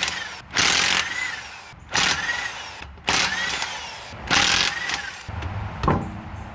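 Impact wrench zipping off lug nuts in short bursts, about one every second and a quarter, the motor whirring up and back down after each. Near the end there are a couple of sharp metallic knocks.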